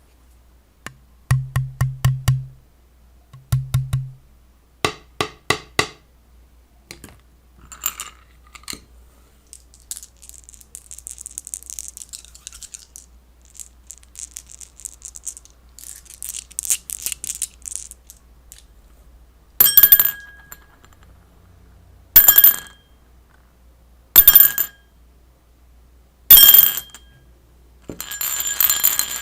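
A string of separate object sound effects: two quick groups of low knocks, a few sharp clicks, a stretch of high hissing rustle, then four short ringing strikes about two seconds apart, with a busier ringing starting near the end.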